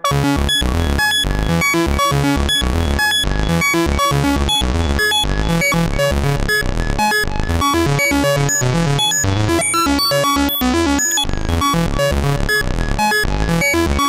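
Roland SH-101 analog monophonic synthesizer playing a fast sixteenth-note sequence of short, bassy notes, wet with tape echo and plate reverb. It comes in loud all at once at the start.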